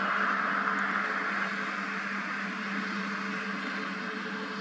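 Jet engines of an Airbus A320-family airliner moving along the runway: a steady rushing hiss over a low hum, slowly fading.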